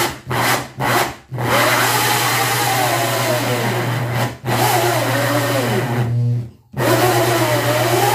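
Corded electric drill with a 5-inch hole saw cutting into a plywood ceiling. It starts with a few short bursts on the trigger, then runs steadily, its pitch wavering as the teeth bite. It stops briefly about six seconds in and starts again.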